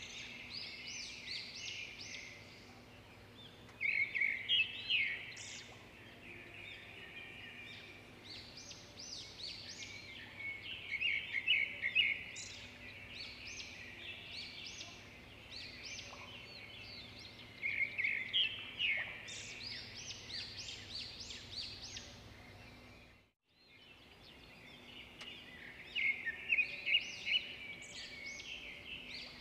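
Songbirds singing: short phrases of quick, high notes repeated every few seconds over a faint steady background. The sound cuts out briefly about three quarters of the way through.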